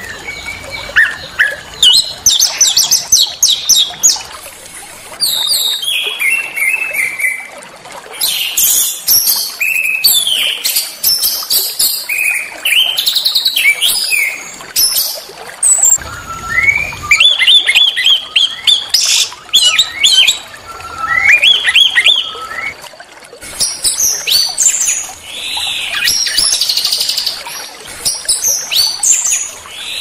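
Small songbirds singing a fast, varied string of sharp chirps, trills and whistled notes, phrase after phrase with short gaps between; some runs drop in pitch and others sweep up.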